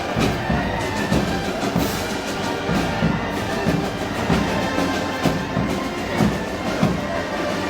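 Live music from a Moros y Cristianos festival band, with tuneful parts held over a steady, evenly pulsing drum beat.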